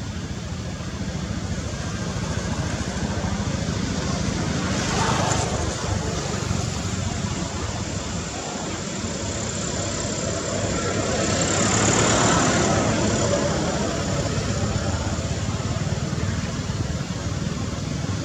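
A steady low rumble like road traffic, with two louder swells, about five and about twelve seconds in, like vehicles passing.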